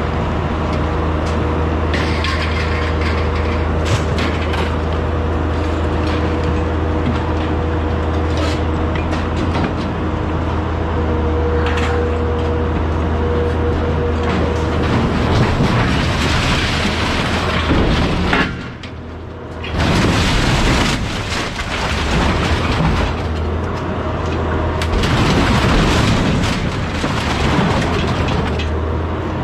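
Grapple loader's engine and hydraulics running steadily with a whine, while the grapple handles scrap metal and drops it into a steel truck bed: sharp clanks at first, then heavier rattling and clattering from about halfway. The noise dips briefly near two-thirds of the way through.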